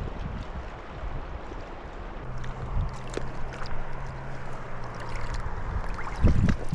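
Flowing river water, with scattered clicks, a faint low hum in the middle, and loud low thumps near the end.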